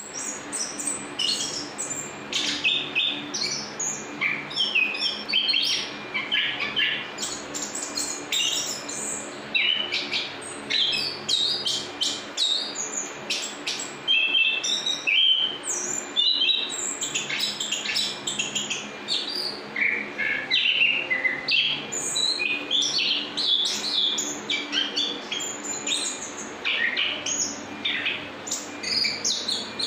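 Chestnut-capped thrush (anis kembang) singing in a long, unbroken run of quick, varied chirps and whistles with hardly a pause, the continuous 'ngerol' song that keepers prize.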